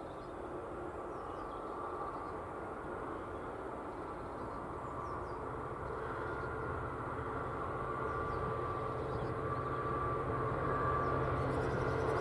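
Distant Class 66 diesel-electric locomotive's two-stroke V12 engine on an approaching freight train, a steady drone growing gradually louder, with a low hum coming in about halfway through.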